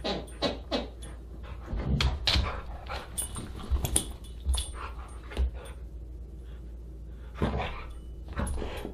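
Siberian husky making short whines and grumbles, each sliding down in pitch, in several clusters. There are dull thumps in the middle as it shakes and drops a plush toy.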